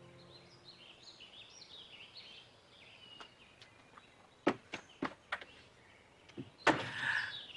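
Faint songbird chirping in the background, then four sharp footsteps about halfway through and a louder knock near the end that sounds like a door shutting behind someone leaving the room.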